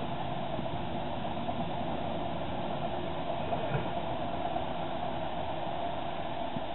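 Freight train of covered goods wagons rolling past: a steady rumble of wheels on rail, with a few light knocks.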